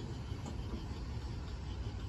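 Distant diesel freight locomotive rumbling low and steady as it approaches.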